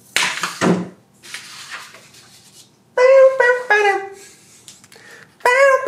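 A sheet of paper pulled off a clipboard with a brief rustle, then two groups of three or four short hooting notes, each note a little lower than the one before, the groups about two and a half seconds apart.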